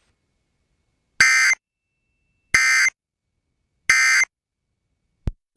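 Emergency Alert System end-of-message code: three short, buzzy digital data bursts about 1.3 seconds apart, the SAME signal that closes an alert. A brief click follows near the end.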